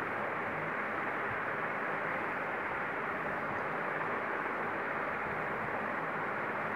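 Steady, even hiss of background noise with a faint low hum underneath, unchanging throughout, with no distinct events.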